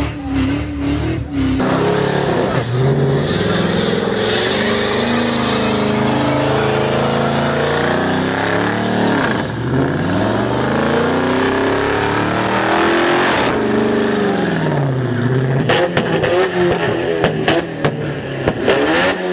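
Car engine revving hard, rising and falling in long sweeps, through a smoky burnout. In the last few seconds the car's exhaust spits rapid pops and bangs as it shoots flames.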